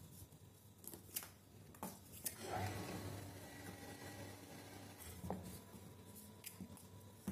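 Kittens scuffling on a cardboard box: faint scratching and scrabbling of claws on cardboard, with a few sharp taps and a busier patch of scratching about two and a half seconds in.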